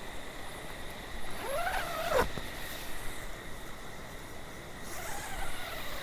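Tent door zipper being pulled: a rasp that rises and falls in pitch, ending in a sharp click about two seconds in, then a fainter second pull about five seconds in.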